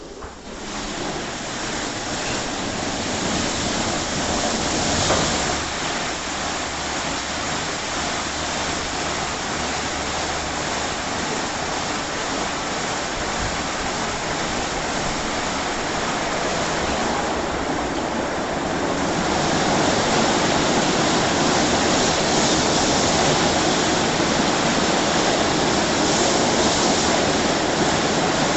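WashTec SoftCare 2 Pro rollover car wash running: a steady rush of water spray with the machinery of its rotating brushes underneath. It starts suddenly at the beginning and grows louder a little past halfway.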